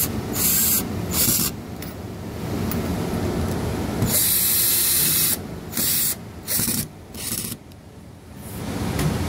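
Screwdriver tightening the two through-screws of a door handle set, working in a series of short bursts with a longer one about four seconds in.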